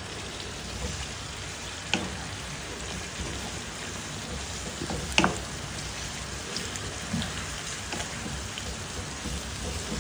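Sliced squid, onions and peppers sizzling in a frying pan as they are stirred with a wooden spatula: a steady crackling sizzle, with two sharp knocks of the spatula against the pan, about two seconds in and again about five seconds in.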